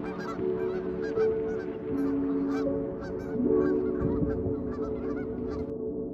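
A large flock of geese honking on the water, many overlapping calls that stop near the end. Steady low sustained tones, like an ambient music drone, run underneath.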